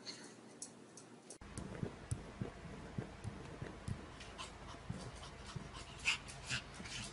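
A puppy panting, with a few short whimpers in the second half, the loudest about six seconds in, over soft knocks.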